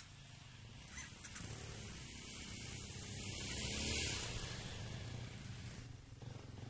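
Dirt bike engine climbing a trail toward the listener, growing louder to a peak about four seconds in, then easing off.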